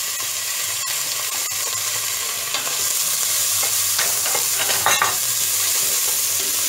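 Diced calabresa sausage sizzling in hot oil in a stainless steel pan as it is tipped in and stirred with a spatula. A steady frying hiss, with a few clicks near the start and some scraping of the spatula later on.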